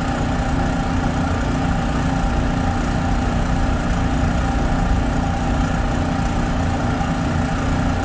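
Oilless refrigerant recovery pump running steadily, pumping refrigerant into a recovery cylinder: an even mechanical hum with a few constant tones over a low rumble.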